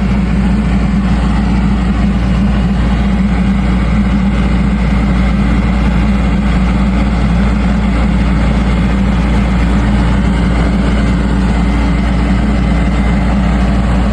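Farm tractor engine running steadily, hitched to a small V plow for lifting potatoes.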